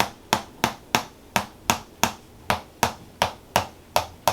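A steady run of sharp, evenly spaced taps or strikes, about three a second.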